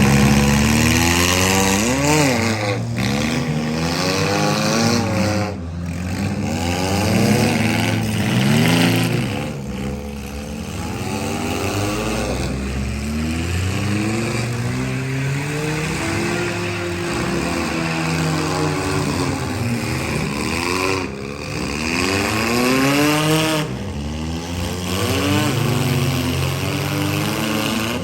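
Several compact and midsize demolition derby cars' engines revving up and down over and over, their pitches overlapping, as the cars accelerate around the arena during the heat.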